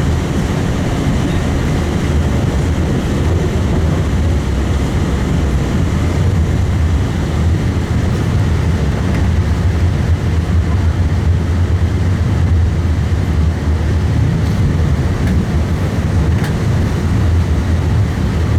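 Tram running along the track, heard from on board: a steady low rumble from the wheels and traction motors.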